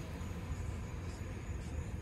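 Steady low wind rumble on the microphone, with surf washing on the shore.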